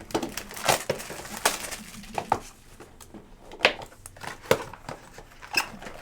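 Trading-card packaging and cards being handled: an irregular run of short plastic and paper crinkles and rustles with a few sharper clicks.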